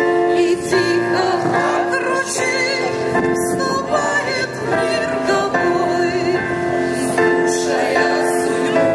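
A mixed group of children, teenagers and adults singing a song together, holding long notes.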